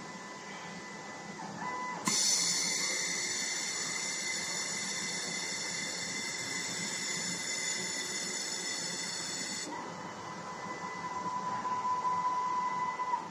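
Desktop three-axis automatic welding machine at work: a steady motor whine, then from about two seconds in a louder hiss with high whining tones that lasts about seven and a half seconds and cuts off. The steady whine then returns and grows louder near the end.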